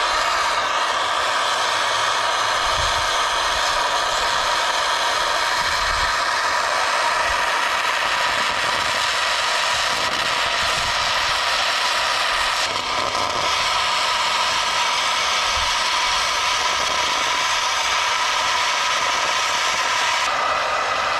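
Hose-fed gas torch burning with a steady hiss while its flame heats a seized, rusted steel wagon spindle. Its tone shifts slightly about thirteen seconds in and again near the end.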